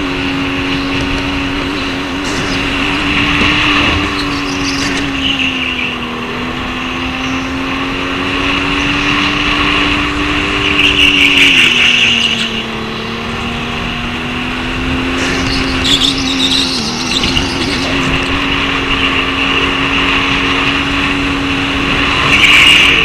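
Electric go-kart's drive motor whining steadily at racing speed, its pitch dipping briefly a few times as the kart slows for corners. Over it runs a hiss that swells into short louder patches about halfway through and near the end.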